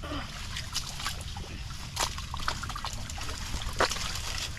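Wet mud and water squelching and sloshing in irregular strokes as someone wades through deep mud, with the sharpest splashes about two seconds in and just before four seconds, over a steady low rumble.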